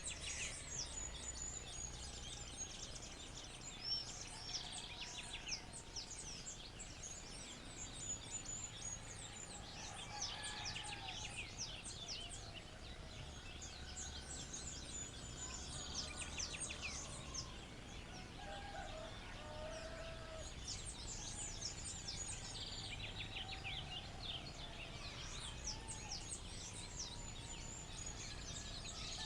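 Dawn chorus: many birds chirping and trilling at once in rapid, overlapping high calls, with a few lower whistled calls now and then, over a steady low background hum.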